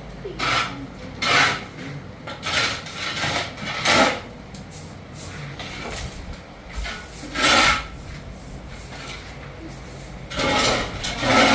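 Rough scraping or rasping strokes, irregularly spaced: several in quick succession over the first four seconds, then a few more farther apart.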